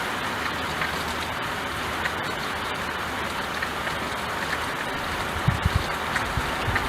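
Steady rain falling on window glass: an even hiss with scattered drop ticks. In the last second and a half, short low rumbles come in under the rain.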